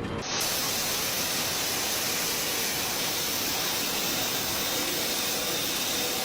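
Steady, loud rushing hiss with no rhythm or pitch, starting suddenly just after the beginning and holding level.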